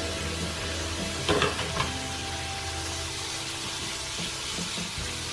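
Bacon and mushrooms frying in a pan with a steady sizzle, and a brief clatter of a utensil in the pan about a second and a half in.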